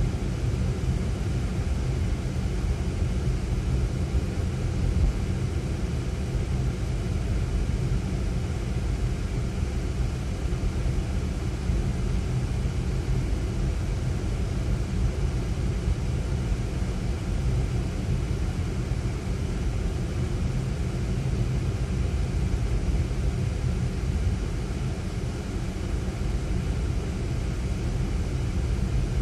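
Steady low rumble of a Ford Fiesta's engine and tyres, heard from inside the cabin while driving along a city road.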